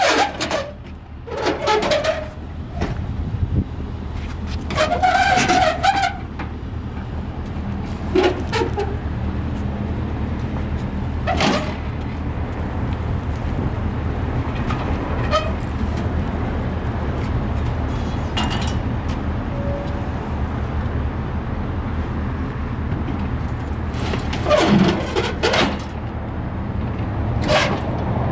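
A pickup truck engine idles with a steady low hum. Over it come scattered knocks and clanks as a manual pallet jack and a vending machine are moved about on the truck's metal liftgate.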